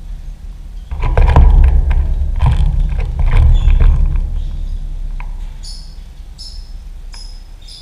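A loud low rumble with scattered knocks fills the first few seconds and then fades. Over the second half a lovebird gives three or four short, high chirps.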